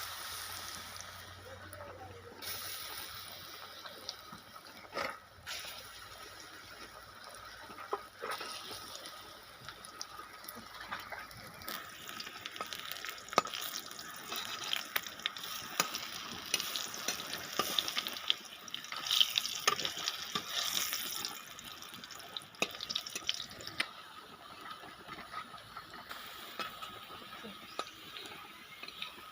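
Hot oil sizzling in a pan with many small crackles and pops, as of pakoras deep-frying.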